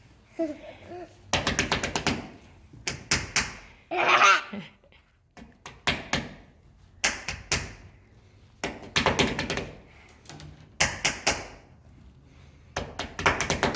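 Bursts of rapid tapping and knocking, several short clusters of sharp taps a second or two apart. Two brief toddler vocal sounds come in between, one about half a second in and a longer one about four seconds in.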